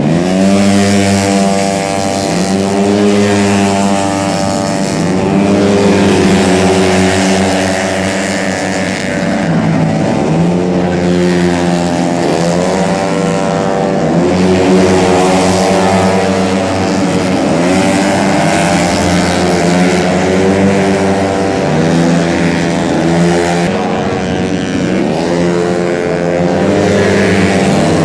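Tuned 130 cc racing scooters with automatic transmissions, several of them, revving hard as they pass one after another. The pitch of the engines rises and falls again and again.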